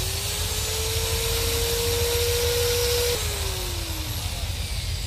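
Corded electric drill boring into a floor: the motor spins up with a rising whine, runs steady with the bit grinding into the floor, then is released about three seconds in and winds down with a falling whine.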